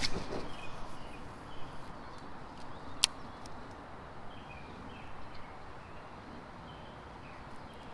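Faint bird chirps over steady outdoor background noise, with a brief rustle at the start and a single sharp click about three seconds in.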